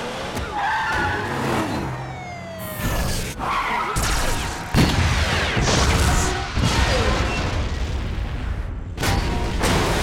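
Action-film sound mix of a mobile crane smashing through racks of compressed gas cylinders: repeated metal crashes and clangs and explosion booms, the loudest about five seconds in, over vehicle engines and tyre skids, with film score underneath.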